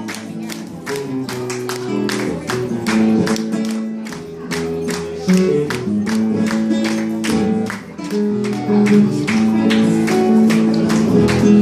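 Live acoustic guitar-family string instrument strummed in a fast, even rhythm, about three to four strokes a second, over ringing low notes.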